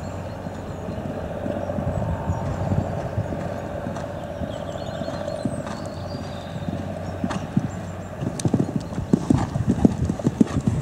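Hoofbeats of a horse cantering on a sand arena, dull thuds in a steady rhythm that grow louder over the last few seconds as the horse comes closer.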